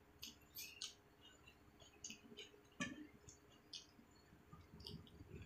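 Faint wet mouth clicks and smacks of chewing close to the microphone, mixed with fingers squishing rice and curry together; one sharper click comes a little under three seconds in.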